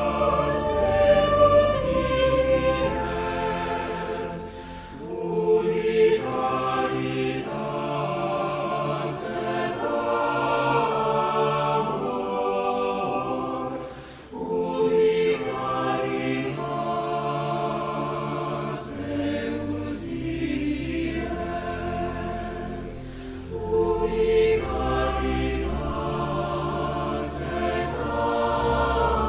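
Choral music: a choir singing in long held phrases over sustained low notes, with short breaks between phrases about five, fourteen and twenty-three seconds in.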